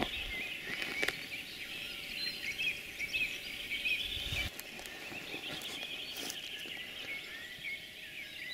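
A chorus of birds calling at once, with black grouse bubbling and chuffing among it. A couple of knocks from the camera being handled come near the start.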